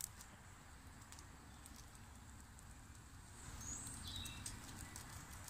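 Small fatwood campfire burning, with faint scattered crackles and pops over a low rumble. A few short high chirps come about three and a half seconds in.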